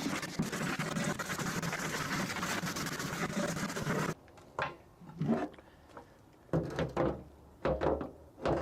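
Oil drain pan being scrubbed with degreaser: about four seconds of steady back-and-forth scrubbing, then several separate short strokes.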